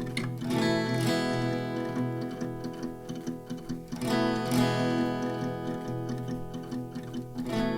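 Acoustic guitar playing an intro of strummed chords, with strong strums near the start, about four seconds in and near the end, the chords ringing between.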